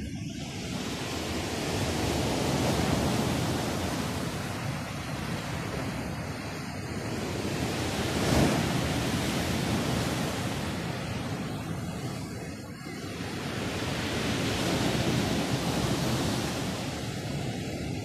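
Sea surf breaking on the shore: a steady rushing wash that swells and eases in slow surges, with a brief sharper crash about eight seconds in.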